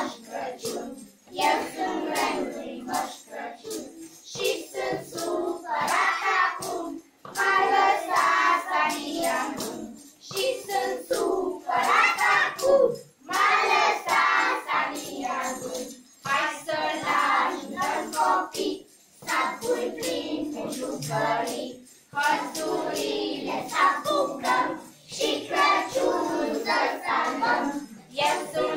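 A group of young children singing together, in phrases of a few seconds with short breaks between them.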